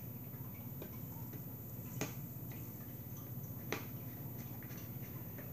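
A few light plastic clicks and taps as the red cap is handled and put back on a gallon jug of white glue, over a low steady hum.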